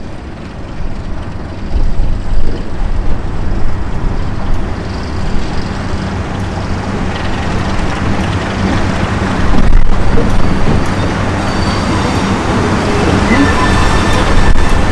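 Heritage diesel locomotive running with a steady low engine hum over rumbling train noise, growing louder toward the end.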